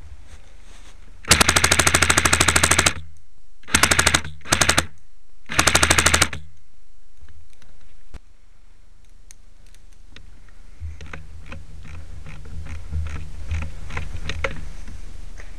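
Airsoft rifle firing full-auto: a long burst of about a second and a half, then three short bursts. Fainter irregular clicking follows near the end.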